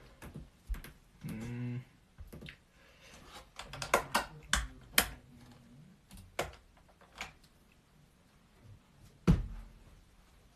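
Irregular clicks of keys being pressed while a value is entered, bunched in a quick run around the middle, with one louder thump about nine seconds in.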